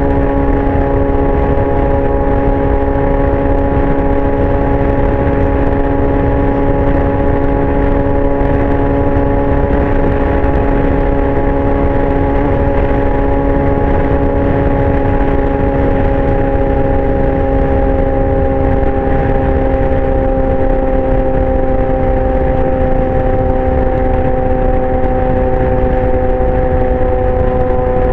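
2019 Yamaha R6's inline-four engine through a Leo Vince exhaust, running at steady high revs under way, its note easing slightly lower over the second half. Wind rush on the microphone.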